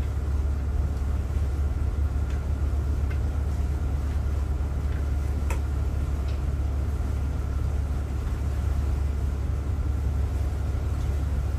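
Fleming motor yacht's diesel engines running steadily at low speed: a deep, even drone that does not change.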